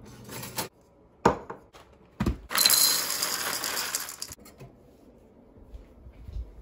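Dry oat-cereal rings poured from the box into a bowl, a rattling pour of about two seconds. A few sharp clicks and knocks come just before it.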